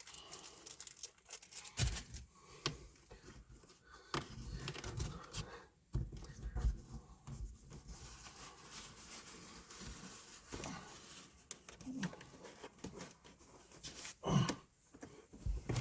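Rustling, rubbing and scattered clicks as a dash cam power cable is handled and pushed into the edge of a car's roof lining.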